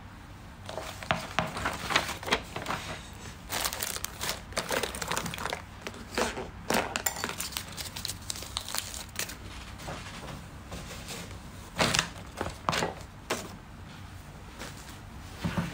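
Irregular crinkling and rustling handling noises with scattered clicks, close to the microphone.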